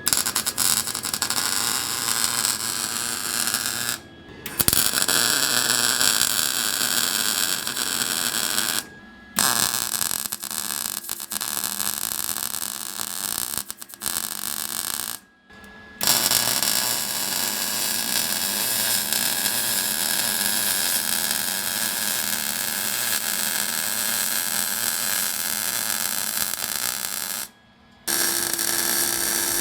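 Welder laying weld beads on the exhaust pipe around a newly fitted muffler: a steady hissing noise in five runs of about 2 to 11 seconds each, with short pauses between them.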